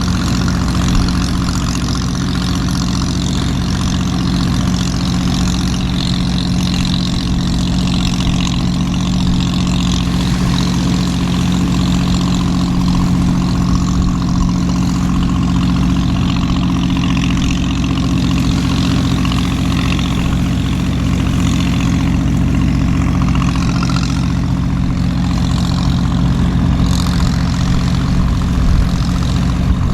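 A fishing boat's engine idling with a steady low hum, under an even hiss of heavy rain.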